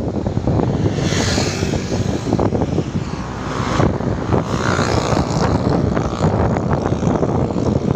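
Road traffic passing close by on a bridge, with a truck and a motorcycle going past, under steady low wind rumble on the microphone. The traffic noise swells about a second in and again around the middle.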